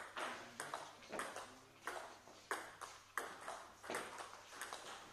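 Table tennis rally: the ball clicking back and forth off the bats and the table, a sharp tick about every two-thirds of a second, each one ringing out in an echoing hall.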